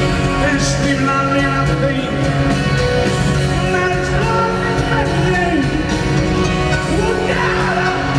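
Live rock band playing: a man sings lead over drums, electric guitar and keyboards.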